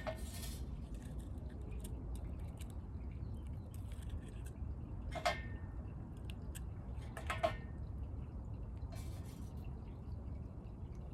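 Light clicks and clinks of small jewelry parts being handled in handmade accessory work, the three sharpest at the start, about five seconds in and about seven seconds in, with fainter ticks between, over a steady low outdoor rumble.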